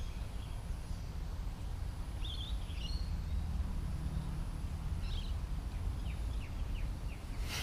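Outdoor backyard ambience: a steady low rumble with birds chirping a few times, including a quick run of short chirps about six seconds in. A single sharp click comes right at the end.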